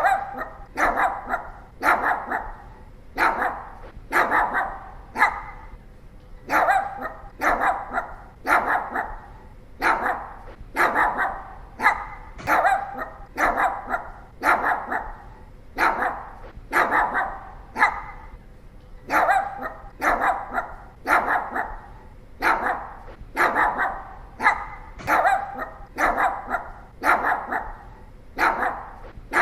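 Pomeranian barking over and over in quick runs of short, sharp barks, two to four at a time, with brief pauses between runs.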